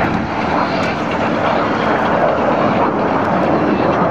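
Steady rushing jet noise from the Snowbirds' Canadair CT-114 Tutor jets flying by in formation, each powered by a single turbojet, with slow swells in loudness.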